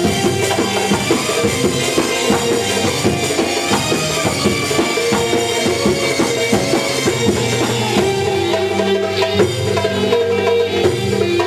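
Middle Eastern belly-dance music from a live band, with drums and percussion under a melody, playing loudly at a steady beat.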